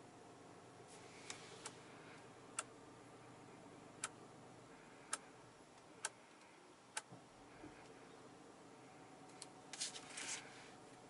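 Sharp single clicks of buttons and controls being pressed inside a Porsche Cayenne Coupe's cabin, about one a second, over a faint low steady hum. A quick cluster of clicks and rustling comes near the end.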